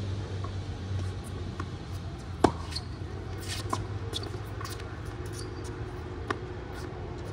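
Tennis ball struck on an outdoor hard court: a sharp racket-on-ball pop about two and a half seconds in, the loudest sound, a fainter knock a little over a second later, and another sharp hit near the end. A steady low hum runs underneath.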